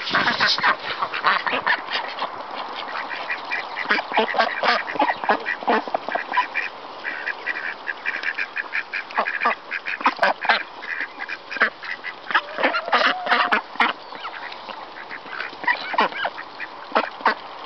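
A flock of white domestic ducks quacking and chattering in short, rapid calls while pecking at scattered grain on muddy ground.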